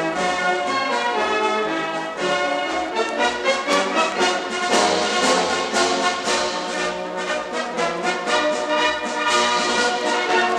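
Brass band music with held chords and a steady beat that comes in strongly about three seconds in.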